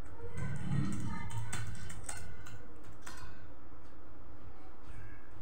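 Typing on a computer keyboard: quick keystrokes come thick for about three seconds, then only a few scattered taps.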